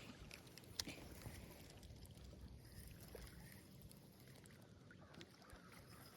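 Near silence: faint outdoor background noise, with one light click a little under a second in.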